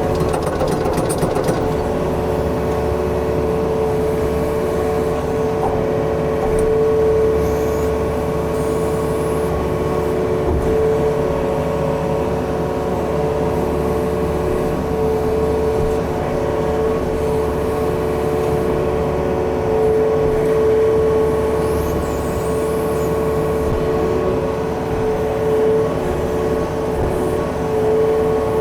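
Yanmar excavator's diesel engine running steadily under work, with a steady whine over the engine note. A few short knocks come in the first second or so.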